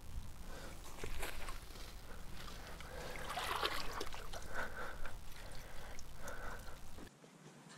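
Pond water splashing and trickling as a common carp swims out of a wet carp sling lowered into the margin, followed by water running off the sling as it is lifted out. The splashing is loudest about three to four seconds in and cuts off suddenly near the end.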